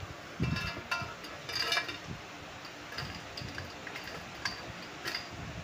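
Wire skimmer clinking and scraping against a steel kadai as crisp deep-fried bitter gourd slices are lifted out and tipped. It gives a few sharp metallic clinks with a short ring, the loudest in the first two seconds and two more near the end.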